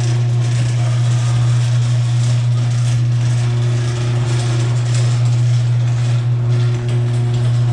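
Garage door in motion: the opener motor gives a steady hum while the door rattles and grinds along its tracks. The door is still loud despite lubrication.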